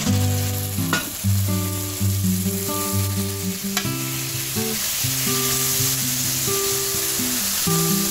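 Beaver meat frying in hot bacon grease in a skillet: a loud, dense sizzle that jumps up as the meat is tipped into the pan, with a couple of sharp spatula knocks against the pan as it is stirred.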